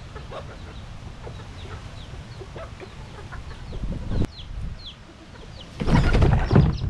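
Feral chickens clucking, with short high peeps from chicks, as they feed around a propped box trap. About six seconds in, the plastic tote trap drops and the flock scatters in a sudden loud burst of flapping wings.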